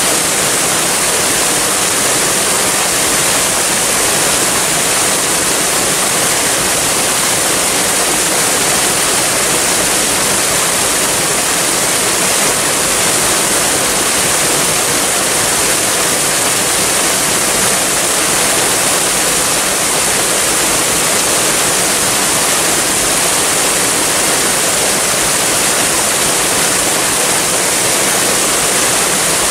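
Waterfall: a steady, unbroken rush of falling water, a hiss strongest in the high range.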